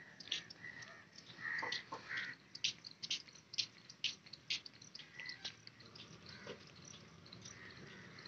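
Birds chirping: many short, sharp, high chirps at an uneven pace, with a few longer calls in the first couple of seconds, thinning out toward the end.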